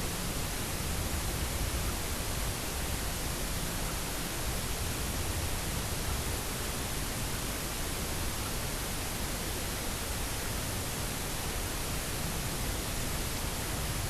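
Steady, even rushing noise with no distinct events or pitch, unchanging throughout.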